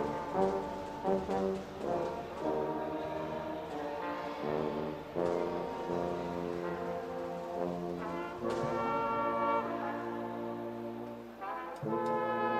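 A marching band's brass section, with trombones and tubas, playing slow sustained chords. The music swells a little past halfway, dips briefly near the end, then comes back with a loud new chord.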